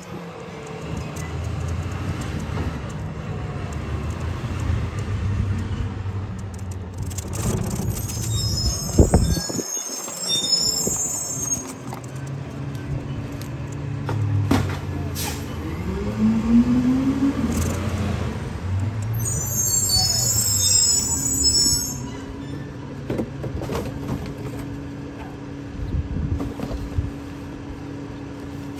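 Garbage truck at work: its diesel engine runs with the pitch and load shifting up and down, with a short rising whine a little past halfway and stretches of high hissing about a quarter and two-thirds of the way through.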